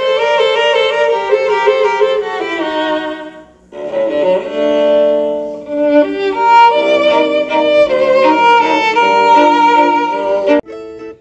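Background music: a melody on strings, held notes stepping up and down. It breaks off briefly about three and a half seconds in, picks up again, and stops shortly before the end.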